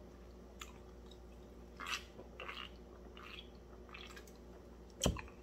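Faint mouth sounds of a person eating and drinking from a can: a few quiet chews and swallows. A single sharp click comes about five seconds in.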